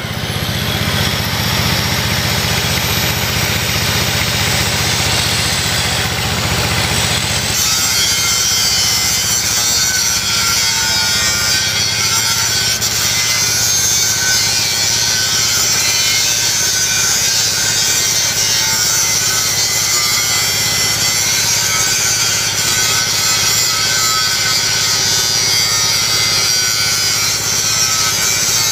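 Handheld angle grinder with its disc biting into a steel beam of a weighbridge frame: a continuous loud grinding whine and hiss. Its tone changes about seven seconds in, turning brighter and harsher.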